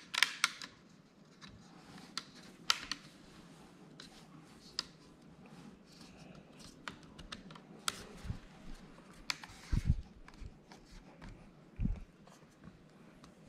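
Plastic clicks and taps as a Framework laptop's plastic display bezel is pressed and snapped into place around the screen, with a couple of dull thumps near the end.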